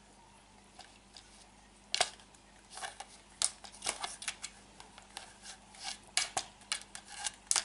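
A cat pawing and biting at a plastic toy lightsaber blade: irregular sharp clicks and scratchy rustles, starting about two seconds in.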